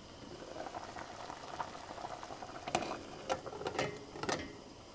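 Water with panela and sweet potatoes boiling in a covered pot with a glass lid, a steady bubbling with a few sharp clicks in the second half. The pot has just come to the boil on a high flame.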